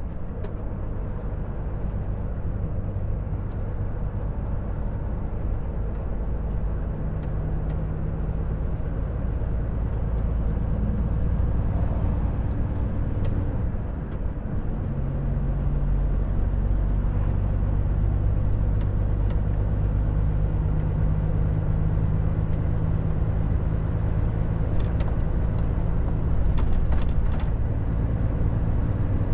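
Volvo FH 460 truck's 13-litre straight-six diesel running steadily on the road, with road noise. The engine note dips briefly about fourteen seconds in and then settles at a new pitch. A few sharp clicks come near the end.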